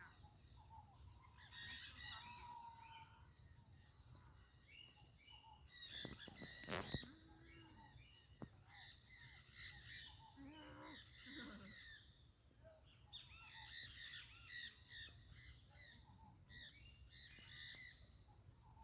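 Rural outdoor ambience: a steady high-pitched insect drone, with many birds chirping and a rooster crowing. A brief knock comes about a third of the way in.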